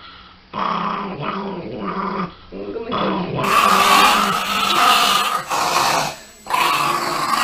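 Chihuahua growling in long bouts with short breaks, getting louder about three and a half seconds in.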